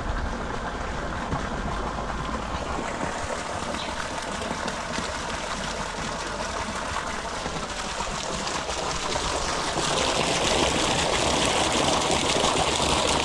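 Pumped water gushing into a fishpond: a steady rushing splash that grows louder about ten seconds in.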